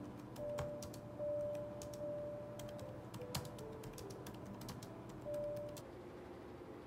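Typing on a low-profile white computer keyboard: light, irregular keystroke clicks, stopping a little before the end. Faint background music notes are held underneath.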